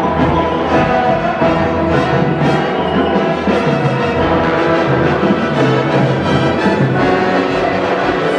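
High school marching band playing its show live in a school gymnasium: sustained brass chords with percussion underneath.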